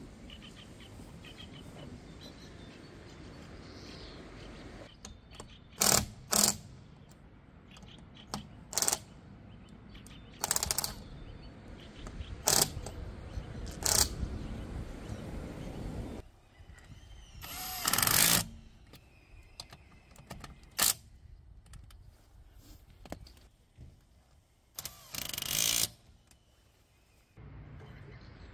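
Tools working on a car wheel's nuts during a tyre change: about ten short, sharp bursts, two of them lasting about a second, with a steady hiss of heavy rain in the first few seconds.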